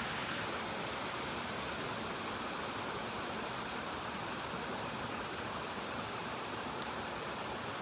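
Steady rush of running water in a creek fed by a nearby waterfall.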